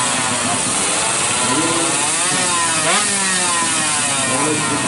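Two-stroke underbone drag bike engine revving at the start line, the throttle blipped so the pitch climbs to a peak about three seconds in, then falls, with another rise near the end.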